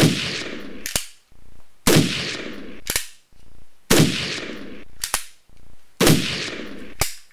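Toy gun firing four shots about two seconds apart. Each is a sharp bang with a fading tail of under a second, followed by a short click.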